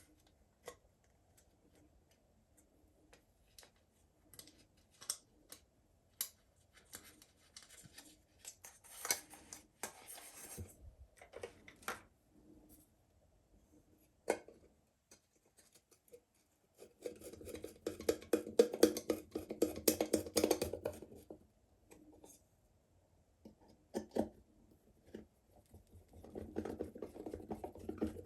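Small clicks, taps and scrapes of hands working on a plastic solar garden light and its parts, with a few seconds of steadier rubbing or scraping about two-thirds of the way through and again near the end.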